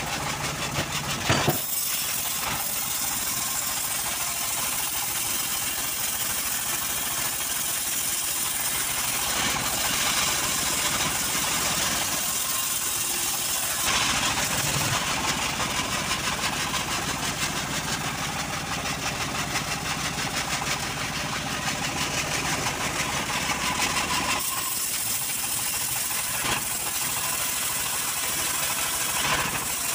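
Homemade band sawmill running and cutting lengthwise through a johar log: a steady, dense machine noise that changes character a few times as the cut goes on.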